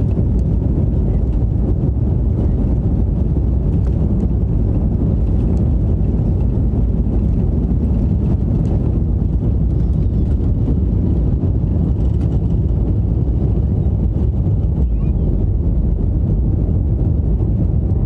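Jet airliner engines at takeoff thrust, heard inside the cabin over the wing as the plane accelerates down the runway and lifts off: a loud, steady low rumble.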